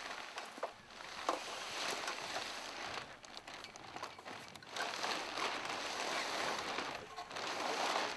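Hang glider sail fabric rustling and crinkling in uneven surges as it is hand-pulled up along the frame tubes, with a few sharp clicks.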